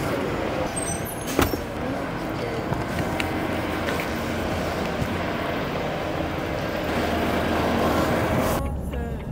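Steady traffic noise from idling cars and a shuttle bus, with a sharp knock about a second and a half in. Near the end the street noise drops away to a low hum.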